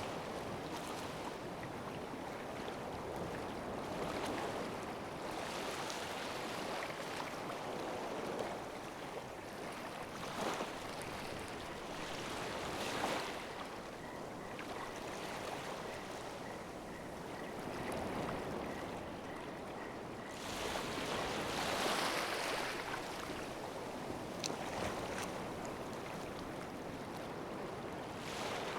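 Ocean waves washing and breaking, a steady surge that swells louder every few seconds.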